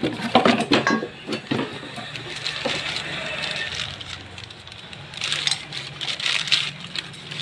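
Small metal engine parts clinking and rattling as they are handled: a run of sharp clicks in the first couple of seconds and another short clatter about five seconds in, over a low steady hum.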